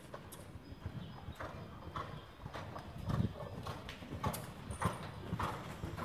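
Horse's hooves loping on soft arena dirt: a dull thud about every half second, louder from about three seconds in as the horse comes close.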